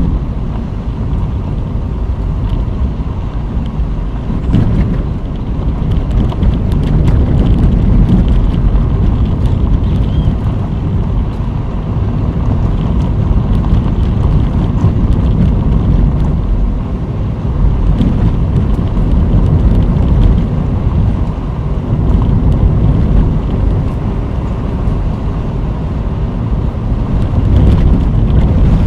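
Car driving along an unpaved dirt-and-gravel road: a loud, steady low rumble of tyres and wind on the microphone, with scattered small clicks from the loose surface.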